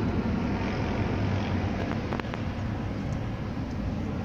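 Jet engines of an Airbus A319 climbing away after takeoff, heard from the ground as a steady low rumble that slowly fades.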